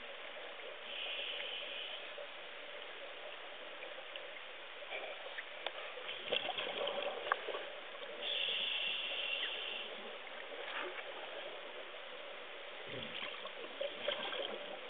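Muffled underwater noise picked up through a submerged camera, with scattered sharp clicks and knocks and two bursts of higher hiss lasting a second or so, about a second in and about eight seconds in.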